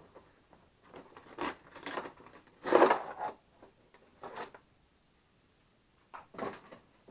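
Packaging and plastic parts being handled in a run of short rustling and scraping bursts as an electric radiator cooling fan is unpacked; the loudest comes about three seconds in.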